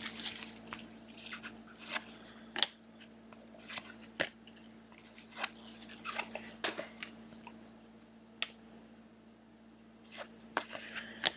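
Trading cards and their packaging being handled: irregular crinkling and rustling with scattered sharp clicks and snaps, sparser for a few seconds past the middle.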